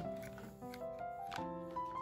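Music with a simple melody of held notes, over a few plastic clicks from a toy cash register's keys being pressed.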